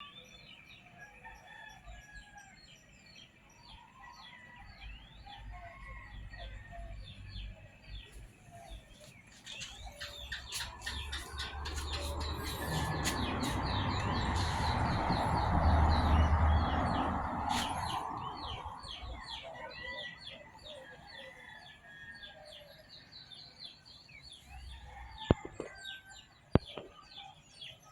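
Roosters crowing and chickens clucking amid a dense chorus of small birds chirping. A broad rumbling noise swells up through the middle and fades away again, and a couple of sharp clicks come near the end.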